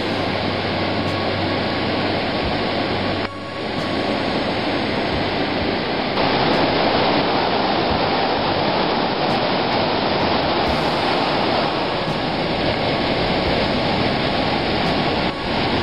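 Whitewater river rushing over rapids and small waterfalls, a loud, steady roar of water. It dips briefly about three seconds in and near the end, and steps a little louder about six seconds in.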